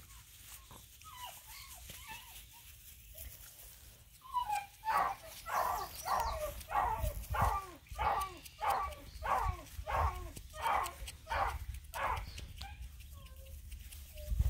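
Black and tan coonhound puppy giving a string of about a dozen short, high barks while play-wrestling, each falling in pitch, about one every half second. They start about four seconds in and stop shortly before the end.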